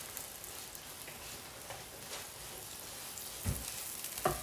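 Potato fries and buttered burger buns sizzling in hot fat in two pans, a steady crackling hiss. There are two short soft knocks in the pan near the end as the buns are handled.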